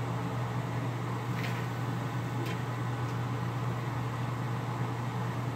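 A steady low hum of a running machine or fan, with a couple of faint ticks.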